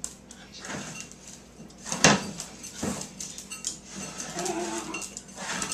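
A dog bowl being pushed and knocked about on a wooden floor by an Australian Terrier at play: scattered knocks and scrapes, the loudest about two seconds in.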